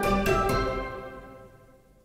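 Background music ending: a few last notes struck in quick succession at the start, then the final chord ringing and fading away to near silence.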